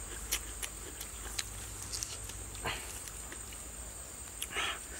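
A person eating with their hands: wet mouth clicks and smacks while chewing, then two short breathy sniffs, the second near the end.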